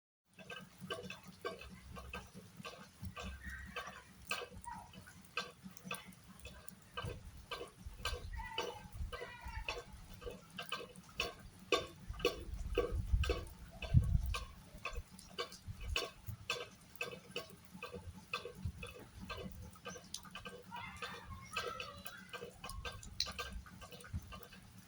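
Rain dripping: irregular sharp plinks of falling drops, a few a second, over a low uneven rumble.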